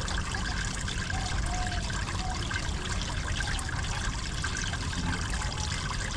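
Hot spring water running and trickling steadily.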